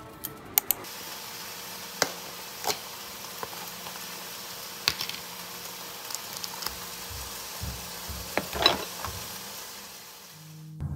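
Scattered light clicks and knocks, as of objects being handled and set down, over a faint steady hum, with a small cluster of knocks a little before the end.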